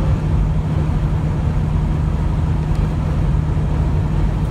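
Semi truck cruising at highway speed, heard from inside the cab: the diesel engine's steady low hum under even road and wind noise.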